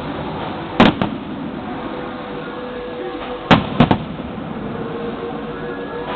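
Fireworks display: aerial shells bursting with sharp bangs, a pair about a second in and a quick cluster of three about three and a half seconds in, with steady background noise between the bursts.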